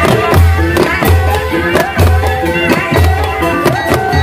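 Javanese gamelan music for an ebeg kuda kepang performance: kendang hand drums strike sharp strokes and deep beats about once a second under a dense, driving rhythm, with metallophone tones ringing over them.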